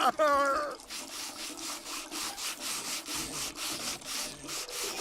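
A rhythmic rasping scrape, about four strokes a second, like something rubbed back and forth, running on steadily after a short vocal sound at the start.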